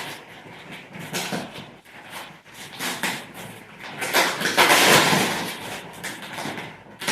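Rustling and scraping of a cardboard shipping box being handled, in several noisy bursts, the longest and loudest from about four to five and a half seconds in.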